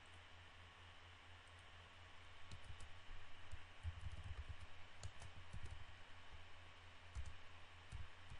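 Faint typing on a computer keyboard: a run of key clicks with soft thuds, starting about a third of the way in, over a steady low hum and hiss.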